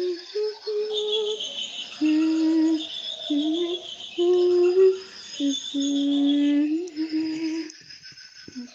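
A voice humming a slow tune of long held notes, with short gaps between them.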